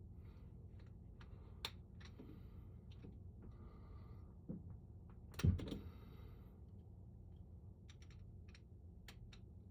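Scattered small metal clicks and scrapes of a flathead screwdriver working at the parts of a door lever handle, with one louder clack a little past halfway.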